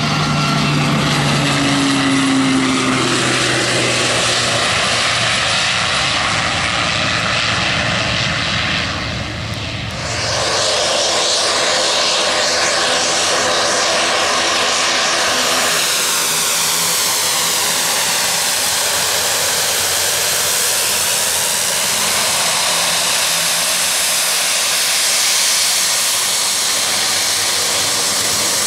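Twin turboprop engines of Cal Fire S-2T air tankers. For the first ten seconds one tanker climbs away on takeoff with a loud engine drone that falls slightly in pitch. After a cut, a tanker running close by on the ground gives a steady, dense turbine whine and propeller noise.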